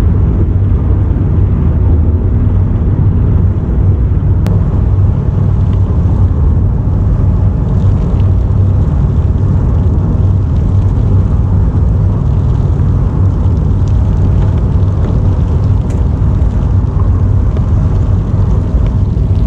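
Loud, steady low engine rumble.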